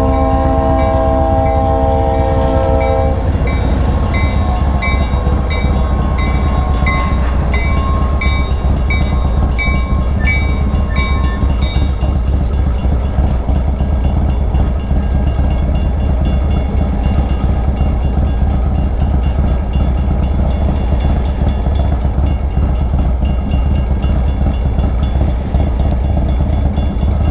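Freight train horn sounding a held multi-tone chord that stops about three seconds in, followed by the train rolling past with a steady low rumble. A high repeating ding, about one a second, runs on until roughly twelve seconds in.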